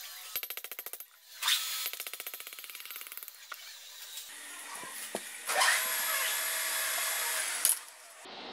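Valve guides being knocked out of a heated cylinder head with a hammering power tool: two bursts of rapid, even strokes at about ten a second in the first few seconds. Later comes a steady run of tool noise of about two seconds that stops abruptly.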